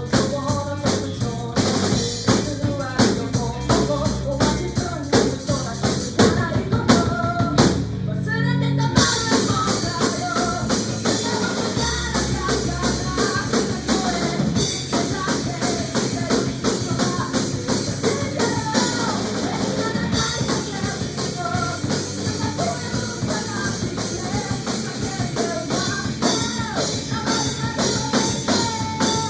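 A band playing a song with a full drum kit keeping a steady beat, with melody over it. The drums break off briefly about eight seconds in, then come back in.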